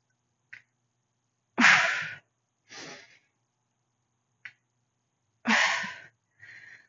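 A woman breathing hard under a heavy kettlebell deadlift: a loud breath about one and a half seconds in, a softer one after it, and another loud breath near the end.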